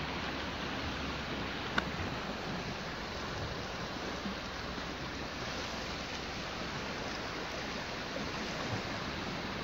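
Small waves washing against a rocky shore, heard as a steady rush with wind on the microphone. A single sharp click about two seconds in.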